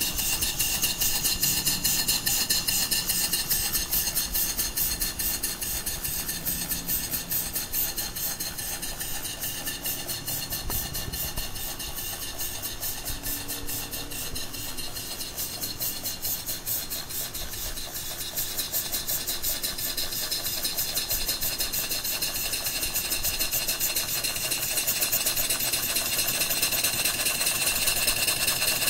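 Antique Haynes model stationary steam engine, single horizontal cylinder of 2-inch bore and 2½-inch stroke, running fast and smoothly with rapid, even exhaust beats. It eases off a little partway through and picks up again near the end.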